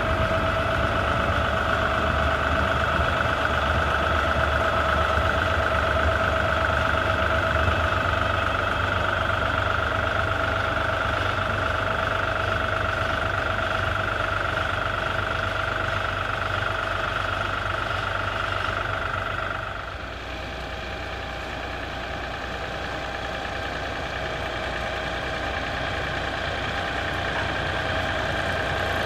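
An engine running steadily, with a constant whine over a low rumble. About twenty seconds in, the note changes and the sound drops in level.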